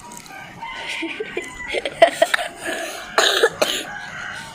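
Close-up mouth sounds of eating fresh fruit rujak with sambal: wet chewing with a few sharp smacks about two seconds in, then a short cough-like burst of breath a little after three seconds.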